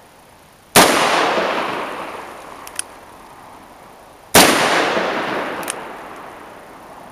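Two gunshots from powerful handgun rounds, about three and a half seconds apart, each followed by a long echo that slowly dies away. A light click follows each shot.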